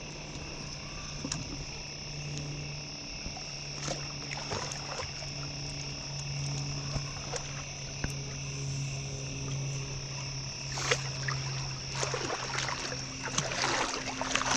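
A hooked catfish being fought on a bent rod and brought to a landing net: scattered clicks and handling noise, then splashing at the surface that grows louder near the end as the fish reaches the net. Under it, a steady low hum and the high steady trill of night insects.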